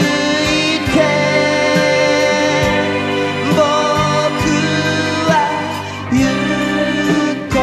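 1980s Japanese pop song: a male singer's voice over band accompaniment, with a steady drum beat.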